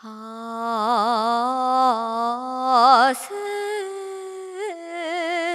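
A woman singing a slow, sustained melody alone, with no instrument heard. She holds a long low note with wide, slow vibrato, then about three seconds in moves to a higher held note with a short upward slide.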